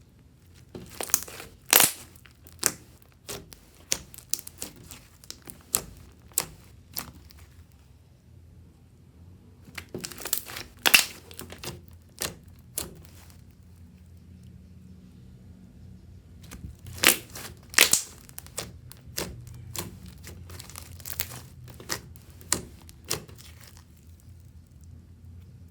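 Fluffy slime being squeezed and kneaded by hand, giving sharp crinkling and popping clicks in three bouts of a few seconds each, with short pauses between them.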